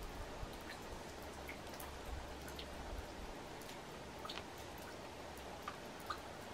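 Faint, steady outdoor background noise with scattered light ticks and drip-like clicks.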